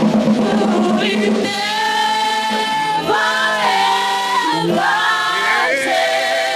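A group of voices singing a slow worship chorus in long held notes.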